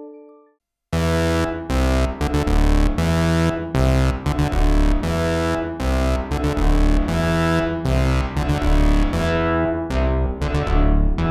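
Synthesizer playing a fast sequenced pattern of deep bass notes and chords through the Donner Vintaverb stereo reverb pedal, on its Studio algorithm. A fading reverb tail dies away first, and the pattern starts after a short silence about a second in.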